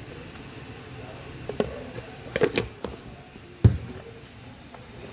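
Kitchen handling noises from cooking at a pot: a few sharp clicks and knocks, the loudest a dull knock a little past the middle.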